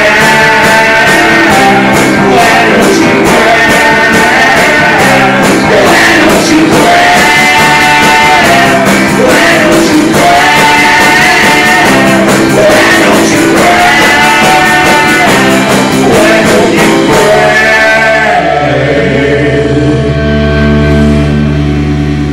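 Live rock band playing: a male singer over guitar and a drum kit keeping a steady beat. About eighteen seconds in the drums and singing stop, and a held low chord rings on.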